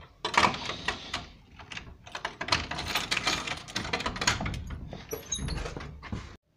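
A barred cell door being shaken and pushed by hand: a dense run of rattles and knocks that cuts off suddenly near the end.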